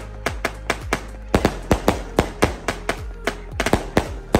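Aerial firework cake firing: its shells burst in the air as a fast, irregular run of sharp bangs, about four or five a second, with a short pause about a second in.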